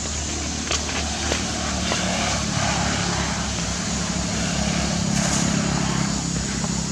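A motor engine humming steadily, growing louder to a peak about five seconds in and then easing off, like a vehicle passing by.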